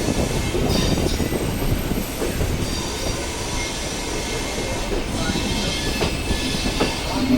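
Train running on the rails: a steady rumble of wheels, with a thin, high wheel squeal above it.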